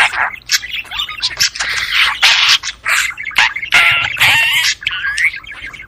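Budgerigars chattering and warbling: a quick, irregular run of chirps, squawks and clicks, with a short pitched trill about four seconds in.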